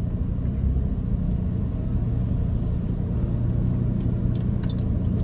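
Steady low rumble of a car in motion, heard from inside the cabin: engine and road noise. Two faint clicks sound near the end.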